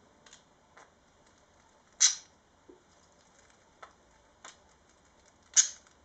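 Budgies giving two short, sharp, high chirps, about two seconds in and again near the end, with a few faint ticks from beaks and feet on a straw-and-rope toy between them.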